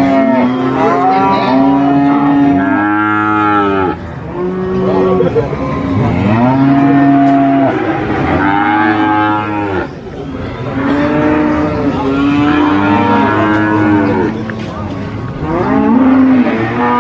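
Several cattle mooing, long calls following one another and often overlapping at different pitches.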